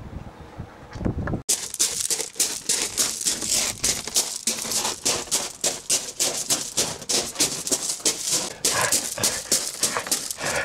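A person panting heavily and fast, several short, even breaths a second, as if out of breath from running. The panting starts abruptly about a second and a half in, after a quieter stretch.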